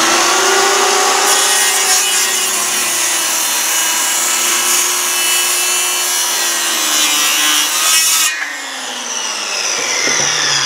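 Milwaukee corded circular saw running and cutting into a 4x4, fed through a 100-foot 16-gauge extension cord; the motor whine sags slightly in pitch under load. About eight seconds in the cut ends and the motor winds down with a falling whine.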